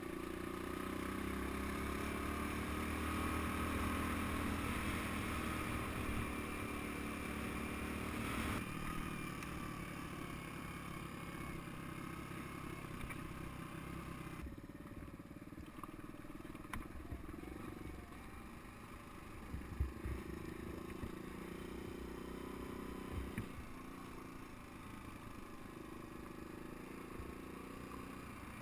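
Suzuki DR200 single-cylinder four-stroke engine running as the dual-sport bike rides a rough dirt track, its pitch rising and falling with the throttle. After about eight seconds it runs lower and quieter, and a few sharp knocks from the rough track come near the middle.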